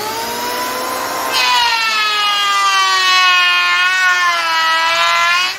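Makita M1902B electric hand planer running with a high whine, its pitch rising as the motor spins up. About a second in it grows louder and harsher as the blades cut into a wooden board, the pitch sagging slightly under load. Near the end it falls back as the cut ends.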